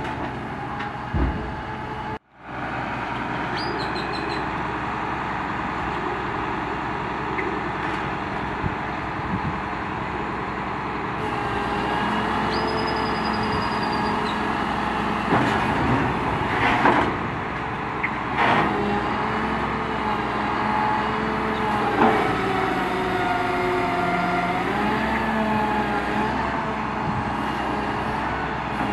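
Truck engine running with the hydraulics of a Builtrite 88-TM truck-mounted grapple loader working, its pitch dipping and rising again near the end. A few sharp knocks come in the second half, and the sound drops out for a moment about two seconds in.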